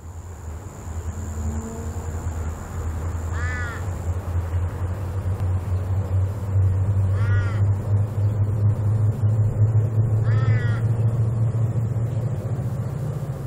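Low diesel engine rumble of three CL class locomotives with EMD V16 two-stroke engines, growing steadily louder as they approach working up a gradient. A crow caws three times over it.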